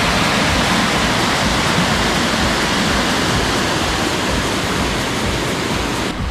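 Flood-swollen stream rushing fast and turbulent: a loud, steady wash of churning floodwater, slightly duller just before the end.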